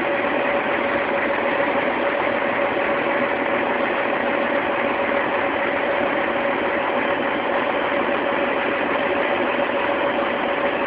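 Scania 113H truck's straight-piped six-cylinder diesel engine running steadily at constant speed, with one held tone in its note.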